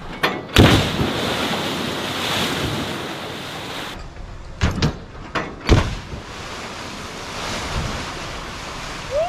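A car of more than a tonne, dropped from a crane, smacks into a deep pool of water. A heavy impact and splash are followed by rushing, churning water, with further sharp impacts and splashing a few seconds later.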